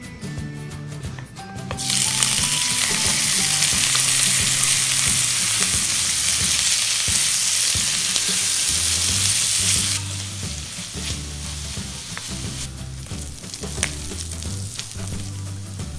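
Bacon and sliced onion dropped into hot oil in a cast iron wok, starting a loud sizzle about two seconds in. About ten seconds in the sizzle turns softer, with the clicks and scrapes of a wooden spoon stirring the pieces in the pan.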